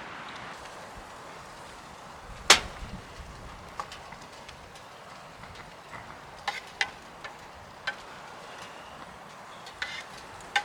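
One sharp, loud knock about two and a half seconds in, followed by a scattering of lighter clicks and taps, over a steady hiss.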